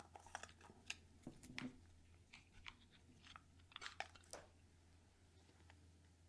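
Foil seal being peeled off a small plastic tub of chamois cream: faint scattered crinkles and clicks that stop about four and a half seconds in.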